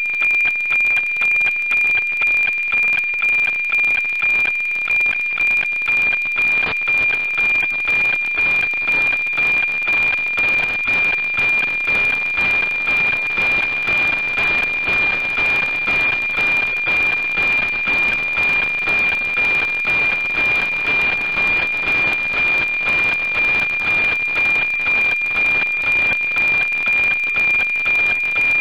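NOAA-19 weather satellite APT image signal received on 137.1 MHz and played as FM-demodulated audio: a steady high whistling tone under hiss, with a regular tick-tock beat about twice a second from the sync pulses that start each image line.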